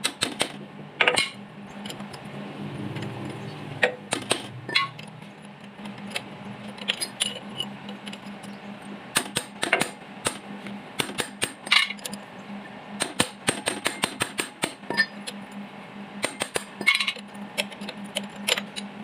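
Irregular metallic clinks and knocks of hand tools on engine parts while a Kubota diesel engine is being taken apart, over a steady low hum.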